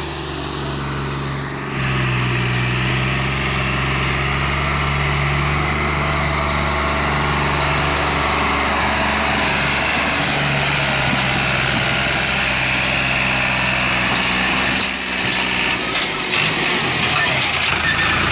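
Al-Ghazi 65 HP tractor's diesel engine pulling a trolley heavily loaded with sugarcane through mud, working under load. It is a steady drone that grows louder about two seconds in and turns uneven, with a few knocks, near the end.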